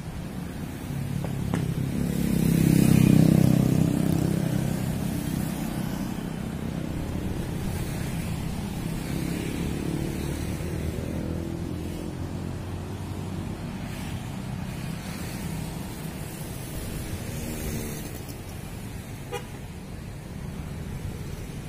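Road traffic: motorcycle and car engines running past on a city street. One vehicle passing close makes the loudest swell about three seconds in, then the traffic settles to a steady rumble.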